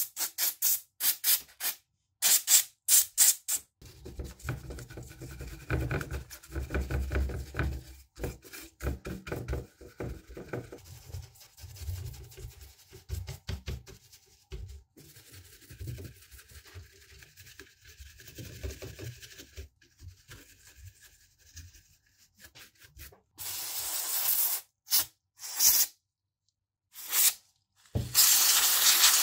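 An aerosol can is sprayed through an extension straw in quick short hissing bursts at a laptop motherboard's ports. A stiff paintbrush then scrubs the circuit board with a rough rubbing sound. Near the end come two longer sprays of hiss.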